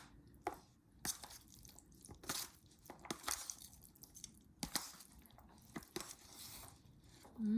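Octopus and shrimp salad dressed with lemon and olive oil being stirred and tossed in a bowl: irregular wet squishing and scraping, with several short knocks of the utensil against the bowl.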